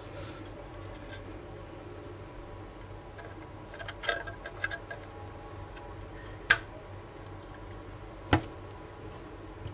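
Handling clicks of a plastic USB-to-SATA adapter being pushed onto a 2.5-inch SSD's SATA connector: a cluster of small clicks and rattles about four seconds in, then two sharp clicks, the second with a low thump, over a low steady hum.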